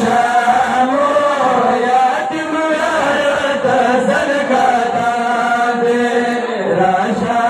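Men chanting a Pashto noha, a Shia mourning lament, in a slow melodic line of long held notes.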